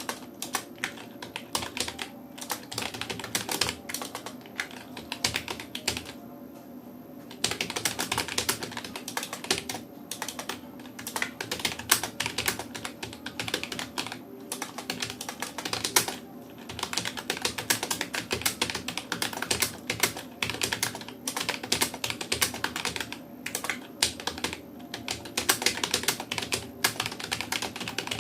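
Rapid touch-typing on a Rapoo computer keyboard: a fast, uneven stream of key clicks with the occasional louder keystroke, pausing for about a second and a half near the quarter mark.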